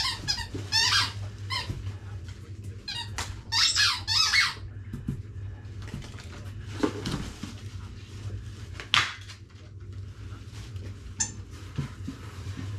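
Squeaky dog toy squeezed over and over: two runs of high, wavering squeaks in the first half, then one more single squeak about nine seconds in.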